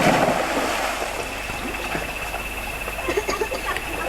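Water splashing: a sudden splash at the start, then a steady rushing wash of moving water.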